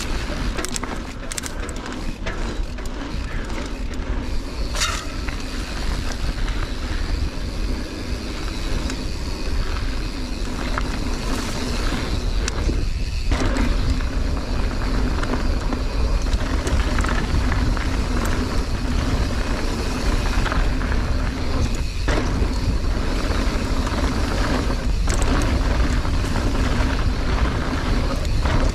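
Mountain bike descending a dry dirt singletrack: wind rushing over the camera microphone with a deep rumble, over the crunch of the tyres and the clicking and rattling of the bike. The rush dips briefly a few times.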